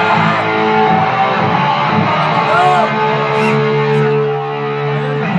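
Guitar played live in an amateur jam, chords strummed and left ringing, with one long held chord in the second half that stops just before the end.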